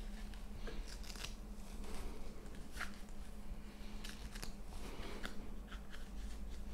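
Small scattered clicks, scratches and rustles of an Apple Vision Pro headset and its head strap being adjusted on the wearer's head, over a steady low hum.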